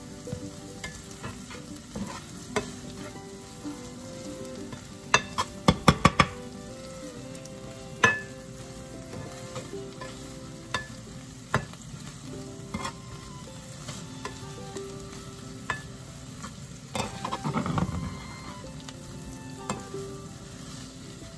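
Diced tomatoes, onions and garlic sizzling on medium heat in a nonstick frying pan while a spatula stirs and scrapes them. Sharp knocks of the spatula against the pan come throughout, with a quick cluster about five or six seconds in and a longer scrape near the end.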